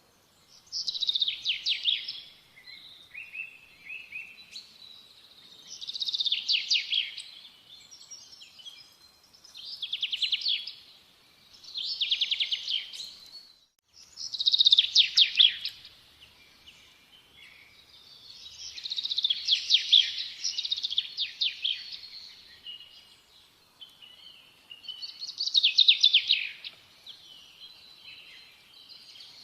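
A songbird singing: repeated phrases of rapid high trills, each a second or two long, every few seconds, with softer twittering between them.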